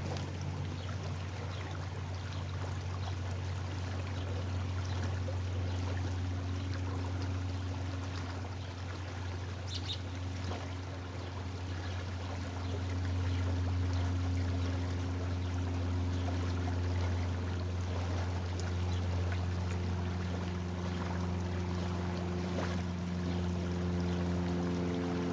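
Steady flowing water over a constant low mechanical hum.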